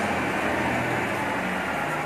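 Refuse truck's diesel engine running steadily, a continuous low mechanical drone.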